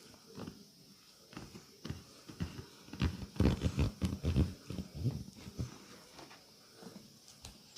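Hands working on a body during a massage: an irregular run of soft slaps and thumps on skin, thickest in the middle.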